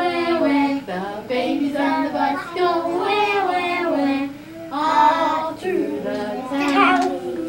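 A woman and a group of toddlers singing a children's song together, in phrases with short pauses between them.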